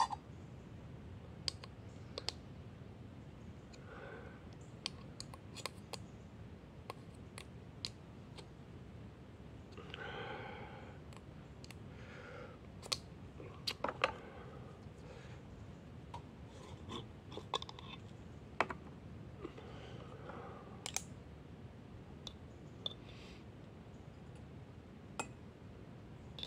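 Scattered light clicks and clinks of a metal spoon, a glass jar and a steel mug being handled, with soft rustling in between, as coffee is spooned out of the jar.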